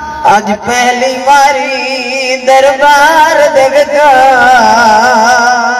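A boy's voice chanting a noha, a mourning elegy, into a microphone over a PA. It sings long held notes that waver in pitch, with a new phrase beginning about halfway through.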